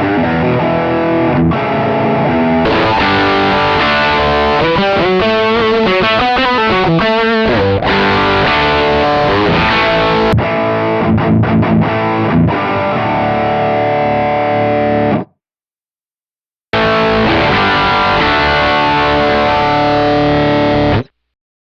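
Electric guitar with humbucking pickups playing heavily distorted rock riffs through a Marshall Silver Jubilee amp tone, with a rapid run of notes near the middle. The playing stops dead about 15 s in, starts again after a second and a half, and cuts off near the end.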